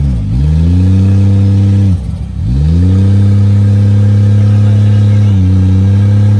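Off-road mud truck's engine held at high revs. The engine note drops briefly and climbs back up twice, near the start and about two seconds in, as the throttle is lifted and reapplied.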